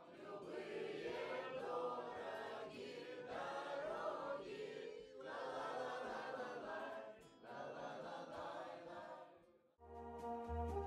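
A mixed group of voices singing together to an acoustic guitar, in phrases of about two seconds with short breaks between them. About a second before the end it cuts abruptly to instrumental backing music with a deep bass line.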